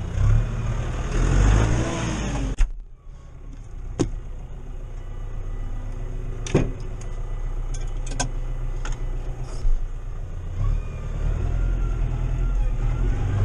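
Massey Ferguson 5440 tractor's diesel engine running, heard from inside the cab. The sound drops sharply for about a second some two and a half seconds in, then the engine carries on, with a few sharp clicks and knocks from the cab.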